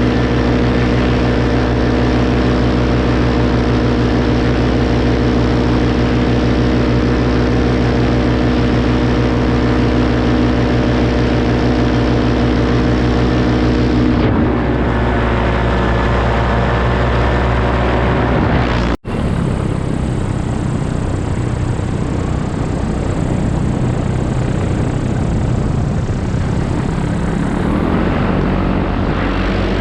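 Paramotor engine and propeller running steadily in flight. About halfway through the engine note changes, the sound cuts out for an instant a little later, and the note rises near the end.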